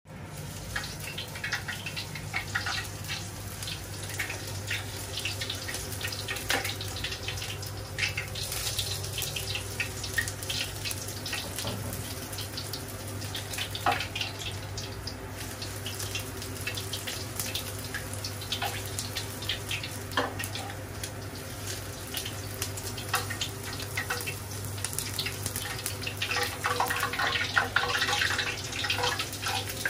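Pork deep-frying in hot oil in a wok, sizzling and crackling as oil is ladled over it, with a few sharper clicks. The crackling gets denser near the end as the meat is lowered into the oil. A low steady hum runs underneath.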